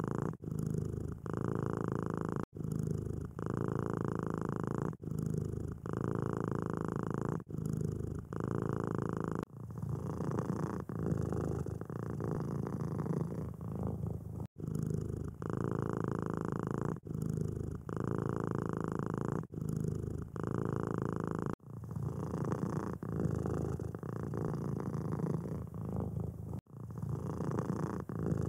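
Domestic cats purring close up, a steady purr that swells and fades with each breath. It comes as a run of short clips joined by abrupt cuts every few seconds.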